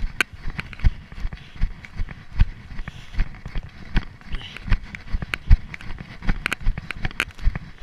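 Footfalls of a runner on a spruce-forest floor, picked up by a chest-mounted camera: a steady running rhythm of dull thuds, with sharp cracks of twigs and brush underfoot.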